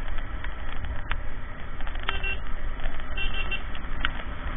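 Wind and road noise from a KTM Duke 390 motorcycle riding through traffic, a steady low rumble. Short horn toots from other vehicles sound about two seconds in and again at about three seconds.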